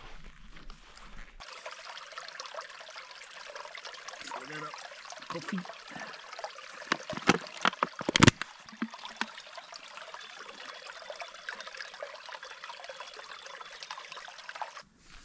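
Small bush creek trickling steadily, with a bottle being filled in it. A few sharp, loud knocks come about seven to eight seconds in.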